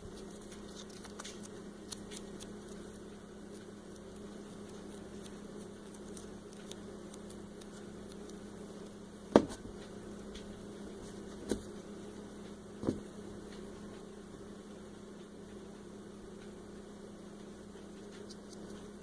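Plastic Play-Doh molds and tools being handled and knocked on a tabletop: three sharp taps a second or two apart, about halfway through, over a steady low hum.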